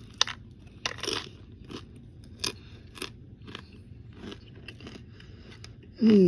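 A person chewing a big mouthful of crunchy food close to the microphone, with irregular crunches about every half second.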